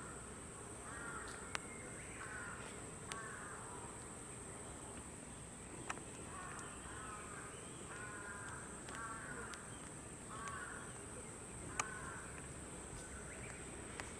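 A crow cawing again and again, short hoarse caws coming in runs, with a steady high hiss behind and a few sharp ticks.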